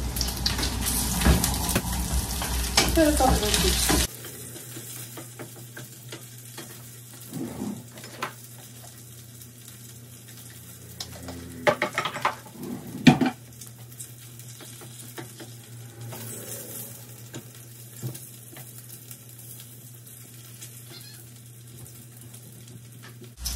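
Cutlets frying in a pan: a steady sizzle that is louder for the first four seconds, then quieter over a low hum. A few knocks and clatters of kitchenware come near the middle.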